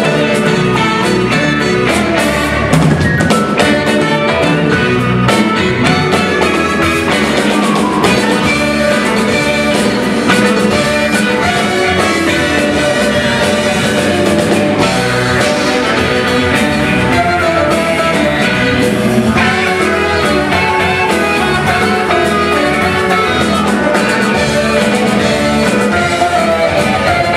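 A live band playing: saxophone lines over drum kit and electric bass guitar, at a steady loud level.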